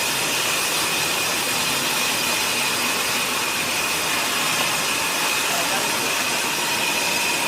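Steady factory machine noise: an even hiss with a faint high whine held underneath, unchanging throughout.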